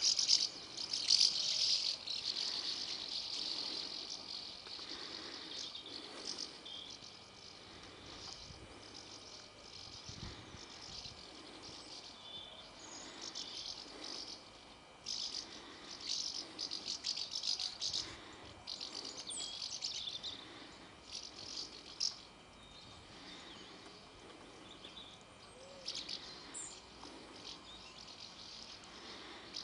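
A flock of house martins calling in flight: dry, twittering chirrups in scattered bursts, loudest and densest in the first few seconds.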